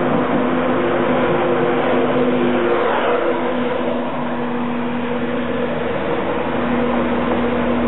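National Express East Coast InterCity 225 train, a Class 91 electric locomotive with Mk4 coaches, moving slowly past along the platform. A steady electric hum runs over the rumble of wheels on rail, and the noise swells briefly about three seconds in as the locomotive goes by.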